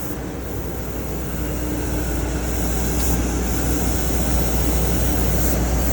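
CNC laser cutter running while it cuts steel jig parts: a steady hiss over a strong low hum.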